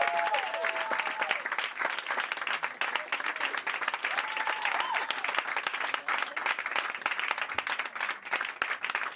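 Audience applauding, with a few voices calling out over the clapping near the start and again about halfway through.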